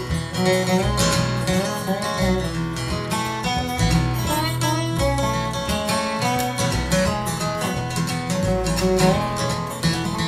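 Live acoustic string band playing an instrumental break in a bluegrass-style tune. A lap-style resonator guitar plays a sliding lead line over strummed acoustic guitar and upright bass.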